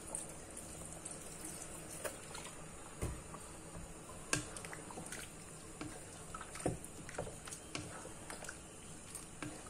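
Thick coconut-milk curry stirred with a wooden spatula in a pan: soft wet squelching with scattered light clicks, over a faint steady hiss.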